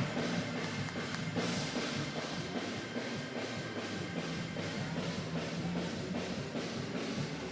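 Church band music led by a drum kit, playing continuously with a steady beat.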